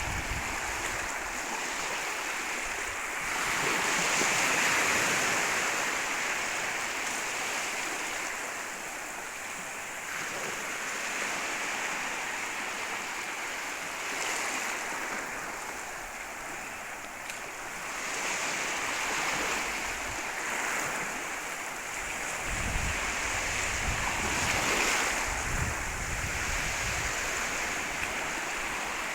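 Sea waves breaking and washing on a beach, a steady surf that swells and eases every few seconds, with some low wind rumble on the microphone.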